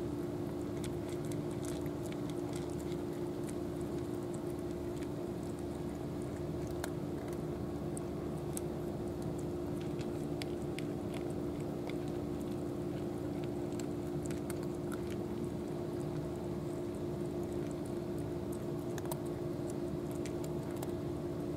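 Cats crunching dry kibble, with many small irregular crunching clicks, over a steady low hum.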